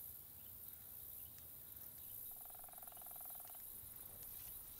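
Quiet outdoor ambience, with one rapid pulsed trill from a small wild animal lasting just over a second, a little past the middle.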